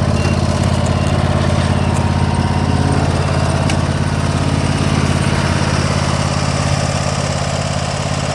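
Toro TimeCutter SS4235 zero-turn mower engine running steadily at a constant speed, with a faint tick or two.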